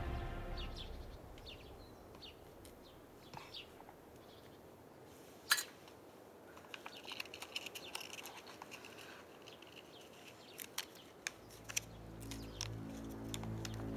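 Quiet pause filled with faint scattered clicks and short high chirps, with one sharper click about five and a half seconds in; low, sustained background music fades in near the end.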